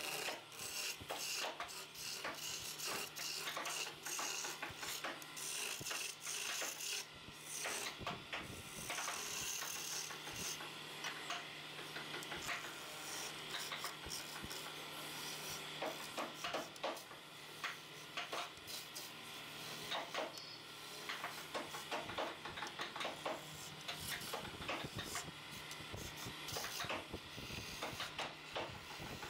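Wood lathe running with a steady hum while a hand tool scrapes against the spinning wooden chair leg, in many short rasping strokes.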